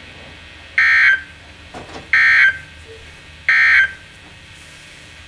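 EAS end-of-message data bursts on NOAA Weather Radio: three short, buzzy digital bursts about 1.3 seconds apart, signalling the end of the severe thunderstorm warning broadcast.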